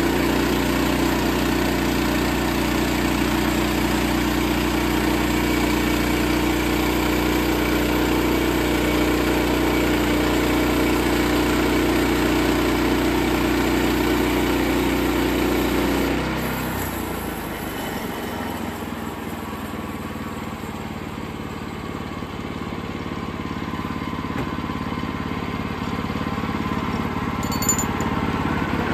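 Portable sawmill's engine running steadily, then dropping in level and pitch about sixteen seconds in and building back up slowly near the end.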